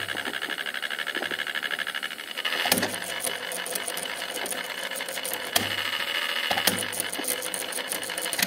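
A cassette player's tape mechanism switched on with a sharp click, then running: a steady motor whir with fast, even ticking and a few louder mechanical clicks.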